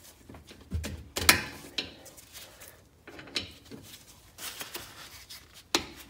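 A ratchet and gloved hands working the bolts of a brake caliper: a few irregular metal clicks and knocks, with quiet handling in between.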